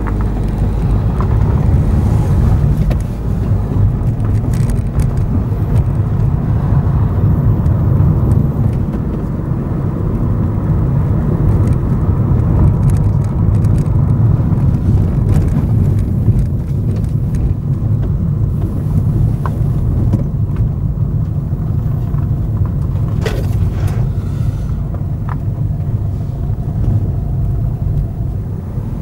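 Car driving slowly along a rough, cracked and patched single-track road: a steady low engine and tyre rumble, with a couple of brief knocks about two-thirds of the way through.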